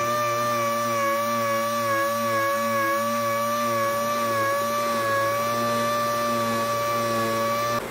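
Dual-action (DA) sander with an 80-grit disc running against a painted sheet-metal truck roof, a steady high whine with a faint regular pulsing underneath, sanding paint off hail dents down to bare metal before filler. It cuts off abruptly near the end.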